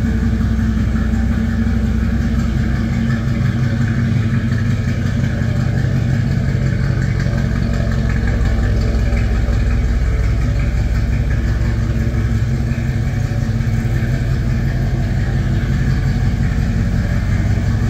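The 360 V8 of a 1979 Dodge D200 crew cab idling steadily, a constant low, even engine note with no revving.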